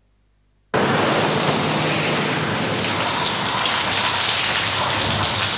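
Near silence, then under a second in a loud, steady rain-like hiss cuts in suddenly and holds.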